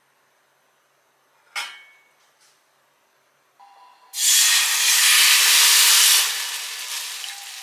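Food dropped into a hot oiled pan: a loud sizzle starts suddenly and settles after a couple of seconds into a steady, quieter frying sizzle. A single sharp click comes a few seconds before it.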